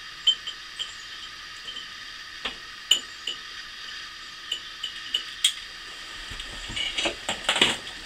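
Scattered small clicks and clinks as a row of candles in glass holders is lit with a long butane lighter, with a louder clatter near the end as the lighter is put down on a glass tabletop.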